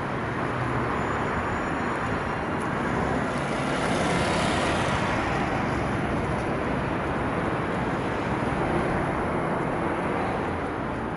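Alstom Citadis tram pulling away from a stop: its running and rolling noise builds to its loudest about four seconds in, then slowly fades as it moves off.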